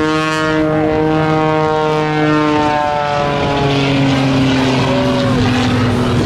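Piston engine and propeller of a small aerobatic airplane droning steadily overhead, its pitch dropping about halfway through.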